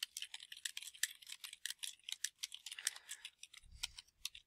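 Computer keyboard typing: a fast, uneven run of key clicks, several a second, as a line of text is typed, with a soft low bump near the end.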